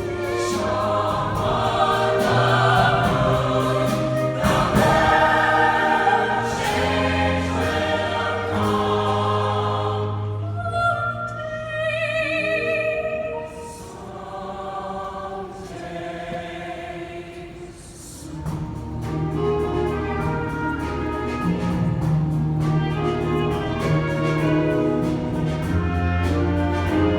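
Choir singing in held chords over instrumental accompaniment with steady bass notes. About ten seconds in the sound thins to a quieter, higher line, and the full choir and accompaniment come back near 19 seconds.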